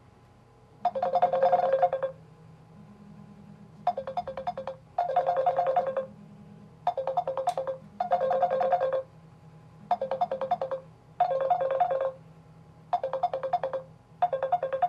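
Samsung Galaxy smartphones ringing: repeated bursts of a chiming ringtone, about one second each, mostly in pairs a few seconds apart, with a fainter low tone repeating underneath.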